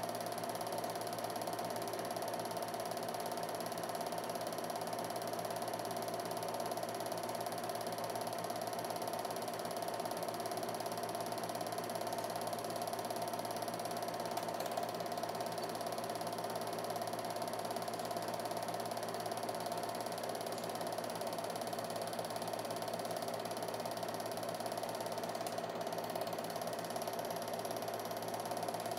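Home-movie film projector running steadily, a mechanical whirr and clatter from its motor and film advance.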